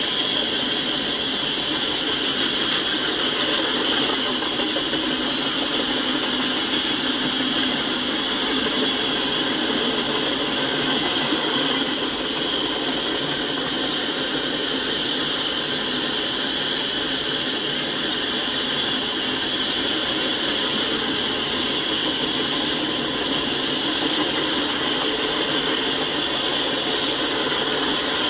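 Freight train tank cars and covered hopper cars rolling past: a steady rumble and clatter of steel wheels on the rails, with a continuous high hiss over it.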